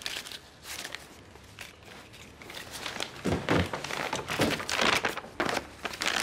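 Paper rustling and crinkling as a letter is taken out and unfolded, in irregular bursts that are busiest from about three to five seconds in, with a few soft knocks of handling.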